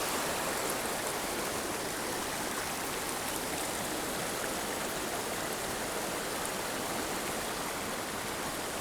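Mountain creek running, a steady even rush of water.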